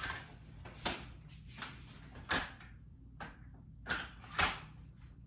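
Plastic and metal clicks and clunks as a stroller seat is unlatched from its frame adapters and lifted off to be turned around: about seven separate knocks, the loudest near the end.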